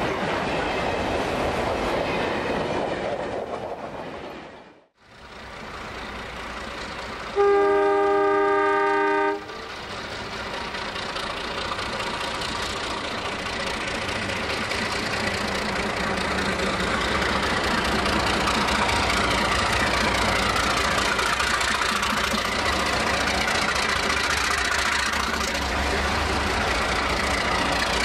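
48 class Alco diesel locomotives hauling a freight train. The engine and rail noise fades out about five seconds in. Then a locomotive air horn sounds one chord of several tones for about two seconds, the loudest sound here, and the engines grow steadily louder as the locomotives approach and pass close by.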